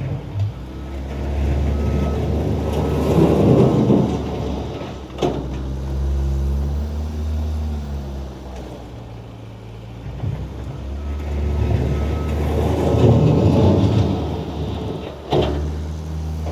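Skid steer engine running steadily while working snow. Twice it swells louder and rougher for a couple of seconds, and each time a sharp metallic clunk follows.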